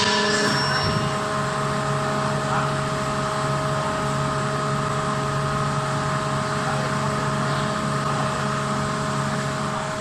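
Steady hum of a CNC hydraulic closed-die forging hammer's hydraulic drive running between strokes, with several held tones and no blows struck.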